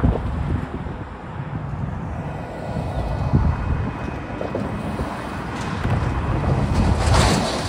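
Road traffic passing through a railroad grade crossing, with wind buffeting the microphone. One vehicle passes close and is loudest near the end.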